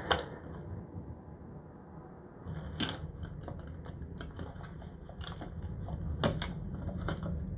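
A few sharp, small mechanical clicks, spaced one to two seconds apart, over a low steady rumble that comes up about two and a half seconds in.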